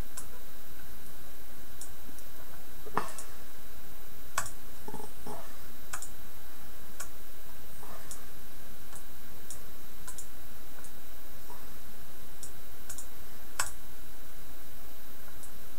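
Computer mouse clicking, single clicks at irregular intervals, over a steady low electrical hum.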